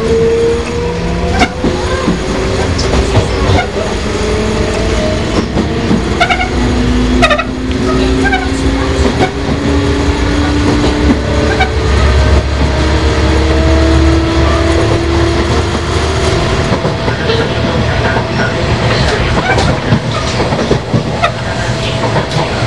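Sotetsu 5000 series electric motor car running under power: the Toyo Denki VVVF inverter and traction motors with right-angle cardan drive whine in several tones that climb slowly in pitch as the train gathers speed. Wheels click over rail joints, and a heavy low rumble swells in the middle.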